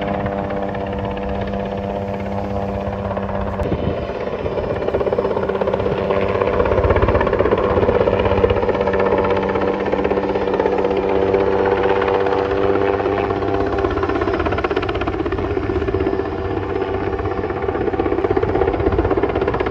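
Sikorsky helicopter flying with a load slung beneath it on a long cable: a steady engine drone with a rapid rotor-blade beat, getting louder about six seconds in.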